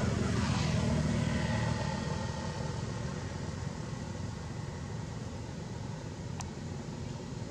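A motor vehicle's engine rumbling, loudest at first and fading away over the first two seconds or so into a steady low background hum. One sharp click about six seconds in.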